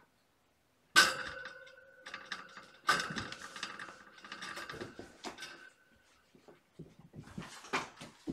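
Kittens playing with toys: sudden bursts of rustling and clattering, the first about a second in and another about two seconds later, each carrying a sustained ringing note that fades. Scattered knocks and scrabbling follow as a kitten jumps onto a carpeted cat tree near the end.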